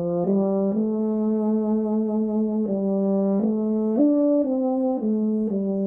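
Euphonium playing a slow melody with a full, even tone, the notes joined one into the next without breaks: an example of good tone quality.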